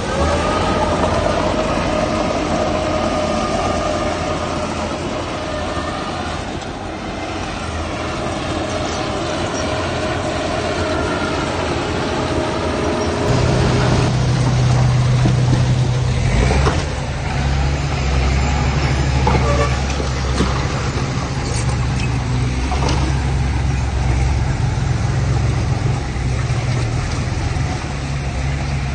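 Heavy diesel earth-moving machinery running. In the first half a higher whine rides over the engine; about halfway through a deep engine note comes in and gets louder, with a few short metal clanks.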